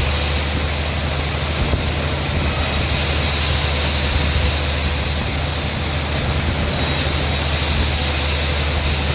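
Sawmill machinery running steadily, a constant low hum under a high hiss that grows louder through the middle, then eases off.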